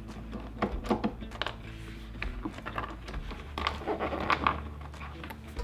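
Background music, over a few clicks and scrapes of a screwdriver taking Phillips screws out of a car's rear door trim panel, with a busier patch of clicks near the end.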